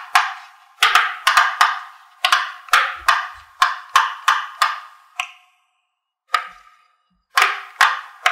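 Silicone pop-it fidget toy, its bubbles pressed through one after another: a run of sharp pops, each with a short ring, about three a second for the first five seconds, then a few more spaced out with pauses.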